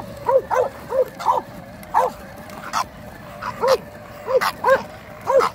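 Bulldog barking in short, high yips, about a dozen in quick, irregular succession, over a faint steady whine.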